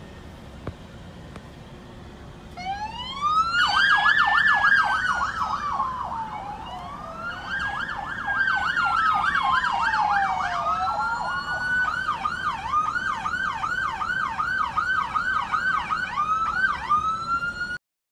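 Police car sirens sounding a slow rising-and-falling wail together with a fast yelp, starting about two and a half seconds in over low traffic noise. Later the yelp goes on alone at about four sweeps a second, and the sound cuts off abruptly just before the end.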